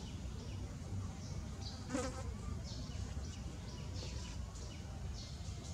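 Insects chirping in short, repeated high-pitched calls over a steady low rumble, with one brief sharp squeak about two seconds in.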